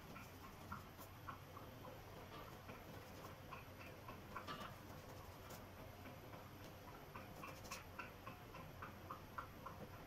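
Faint, irregular ticks and taps of a paintbrush dabbing oil paint onto a canvas, over a faint steady low hum.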